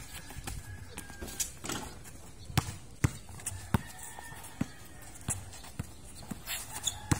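A basketball being dribbled on a concrete court: a string of sharp, uneven bounces, about one to two a second.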